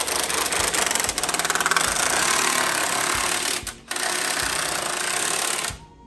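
Cordless impact driver hammering a bolt into the wooden frame and leg of a snooker table, with a brief break about three and a half seconds in, then stopping abruptly near the end.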